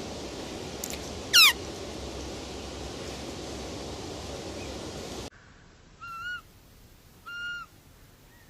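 Roe deer calls. A single loud squeal sweeps steeply down in pitch about a second and a half in, over a steady background hiss. After an abrupt change to a quieter recording, two short whistling calls come near the end.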